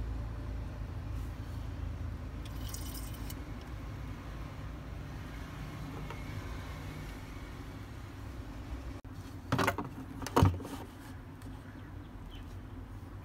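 A steady low background rumble, with two sharp knocks of things being handled and set down on the table about ten seconds in.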